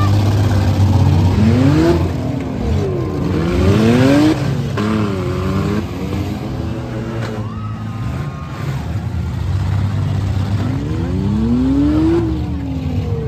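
Demolition derby cars' engines revving hard, pitch climbing and falling back several times with more than one engine at once, over a steady low engine drone. A few sharp knocks come through in the first half.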